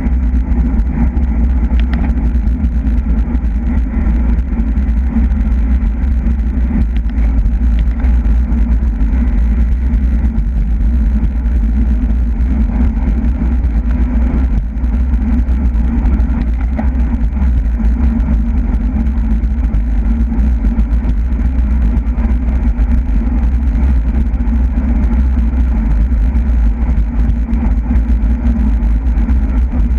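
Steady loud wind rumble on the microphone of a camera riding on a racing bicycle at speed.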